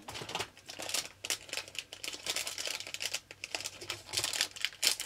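A sachet of giant Pocky being opened by hand: the wrapper crinkles and tears in a rapid, irregular run of crackles.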